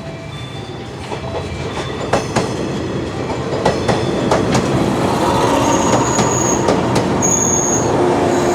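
An electric train's wheels roll along the track, growing louder, with sharp clicks as they cross rail joints. Two brief high wheel squeals come about six and seven seconds in.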